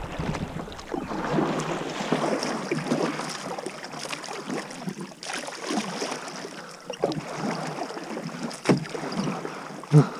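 Kayak paddle strokes: the blades dipping and splashing in the river, water running off them between strokes. Two sharper splashes or knocks near the end.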